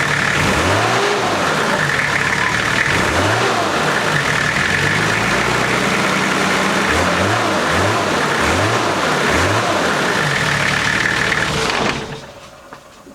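Nissan TD42 4.2-litre six-cylinder diesel engine being revved repeatedly, its pitch rising and falling with each blip of the throttle. No knock is heard in it: the engine knock the owner had been chasing is gone. It is switched off about twelve seconds in.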